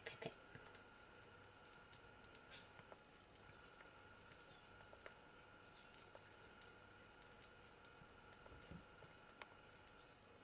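Faint, quick wet clicks of a young Eurasian red squirrel licking and chewing soft mash off a metal spoon, over a faint steady hum.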